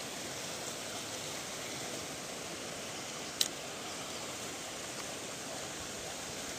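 Water running steadily through a concrete irrigation channel, with one sharp click about three and a half seconds in.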